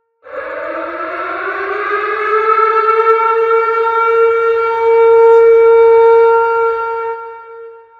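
Tornado warning siren sounding one wail. It starts about a third of a second in, rises in pitch for about three seconds, holds a steady tone, then dies away near the end.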